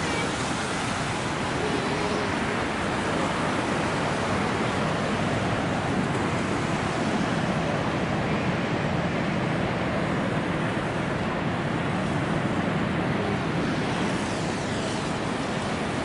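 Steady rushing of water, an even wash of noise that holds at one level without distinct breaks or surges.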